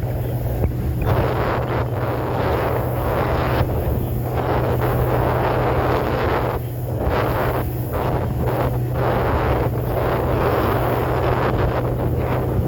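Boat motor running steadily, with a low hum under gusty wind buffeting the microphone.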